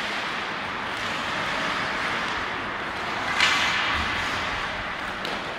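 Ice hockey play in a rink: skate blades scraping and carving on the ice make a steady noise, with one sharper, louder scrape or clatter about three and a half seconds in.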